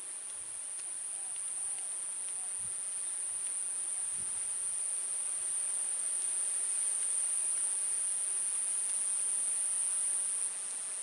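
Insects calling steadily in one high-pitched, unbroken drone, a little quieter near the end.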